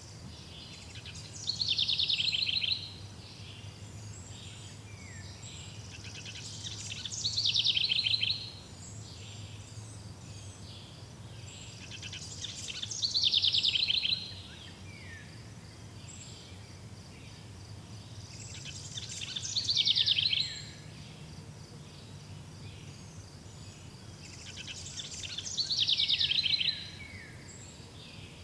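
A songbird repeating the same loud trilled song phrase five times, about every six seconds, each phrase swelling and then stopping abruptly. A steady faint high chirring runs underneath.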